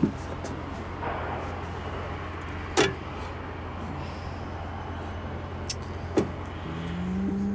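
Sharp clicks, one loud one about three seconds in and two more near the end, as a two-burner gas hob with a glass lid and its control knob are handled, over a steady low hum.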